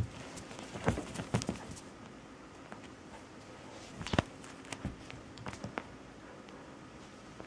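A cat wrestling a stuffed teddy bear on a fabric couch: irregular soft thumps and scuffles of paws and toy against the cushions. One cluster comes about a second in, the loudest thump just after four seconds, and a few lighter ones follow.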